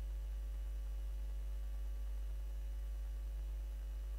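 Steady low electrical hum with a thin buzz of evenly spaced overtones, unchanging throughout; no other sound stands out.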